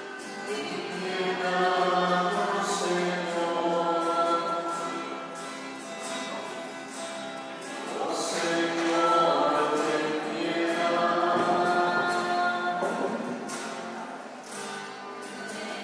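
A choir singing a hymn in long held phrases that swell and ease off.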